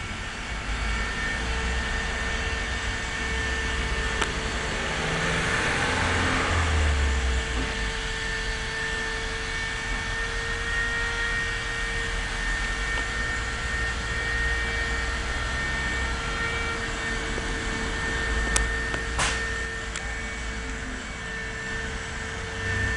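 Non-stop buzzing held at one steady pitch over the low running rumble of the garage's air compressor, with a single sharp click about nineteen seconds in.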